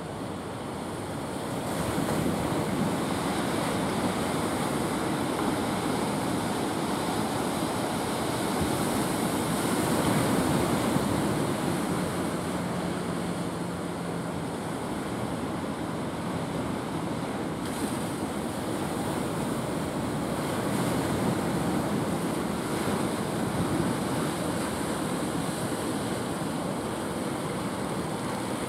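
Ocean surf breaking and washing, a steady rushing that swells and eases, with wind buffeting the microphone.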